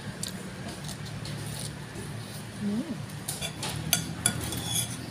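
A metal spoon and chopsticks clinking against a ceramic noodle bowl, with a cluster of short clinks about three to four and a half seconds in.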